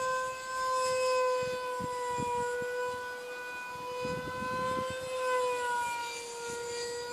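Electric ducted fan of a Starmax F-35 RC model jet whining steadily in flight, one high pitch with overtones that dips slightly about six seconds in.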